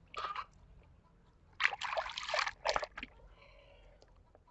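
Water sloshing and splashing in a tub as a hand scrubs a plastic toy airplane in muddy water. There is a short splash right at the start, then a longer run of splashing from about one and a half to three seconds in.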